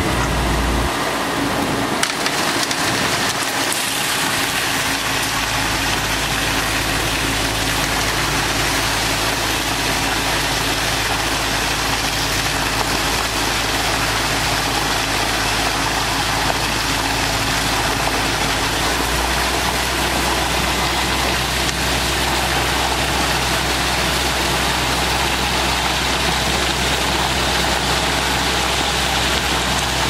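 Concrete mixer truck's diesel engine running steadily to turn the drum during discharge, with a dense steady rushing from wet concrete sliding down the chute. The engine's low note changes a few times, about a second in, again around five seconds, and near the twenty-second mark.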